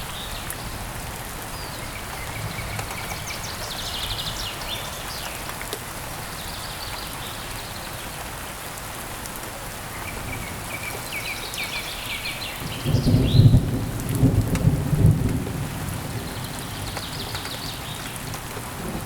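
Steady heavy rain, with bursts of bird chirping returning every few seconds. A rumble of thunder breaks in about thirteen seconds in, the loudest sound, and dies away over about three seconds.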